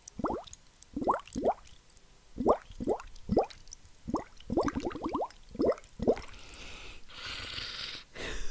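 Air blown through a wide bubble-tea straw into a container of liquid, large bubbles gurgling and plopping in quick irregular runs, each with a short rising pitch. It is foley for a bubbling cauldron. Near the end the bubbling gives way to about two seconds of hissing.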